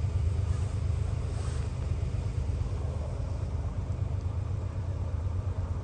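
Steady low vehicle rumble with a faint even hiss over it.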